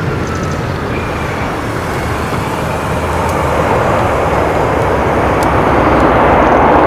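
Jet engines of a Bombardier CRJ-1000 landing, its two rear-mounted General Electric CF34 turbofans producing a steady rushing noise that grows louder toward the end.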